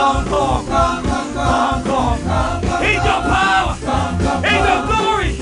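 Live gospel worship music: a band with bass and drums under voices singing.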